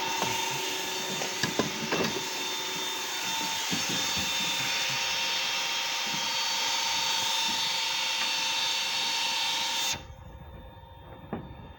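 Stone-cutting saw machine running through Dagestan stone: a steady grinding noise with a constant high whine and a few sharp clicks early on. It stops suddenly about ten seconds in.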